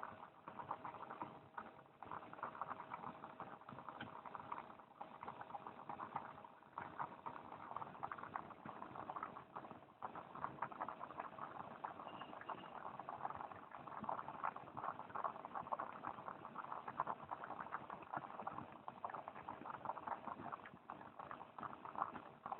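Steady, dense crackling and sizzling of food cooking over an outdoor fire.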